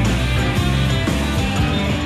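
Live rock band playing an instrumental stretch: guitars over bass and drums.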